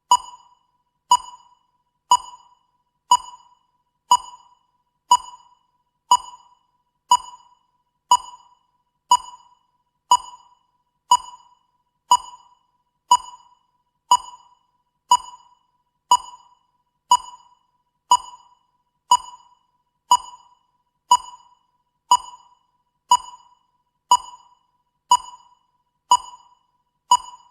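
Countdown timer beeping once a second: a short, high electronic ping that dies away quickly, repeating at a steady even pace.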